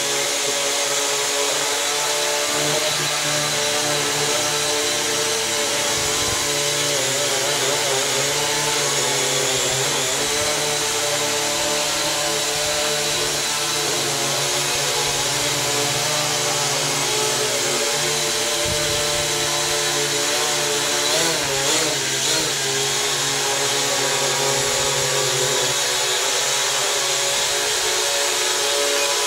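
ProMark VR quadcopter's propeller motors buzzing steadily in hovering flight, a multi-toned whine whose pitch wavers briefly twice, about a quarter of the way in and again about two-thirds in, as the motor speeds shift.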